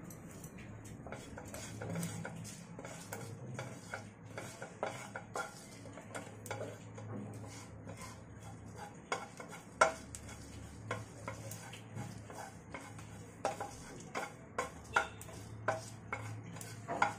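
Wooden spatula stirring and scraping cumin seeds and dried red chillies around a non-stick frying pan as they roast, with irregular light taps and clicks of the spatula against the pan.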